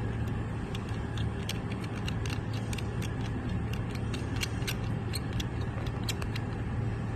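Light metallic clicks and ticks at irregular moments as the copper nozzle is unscrewed from the front of a handheld fiber laser welding torch, over the steady low hum of the running machine.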